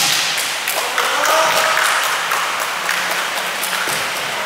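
Kendo sparring: bamboo shinai clacking in a quick, irregular run of sharp cracks, beginning with a loud one, with shouted kiai voices among them.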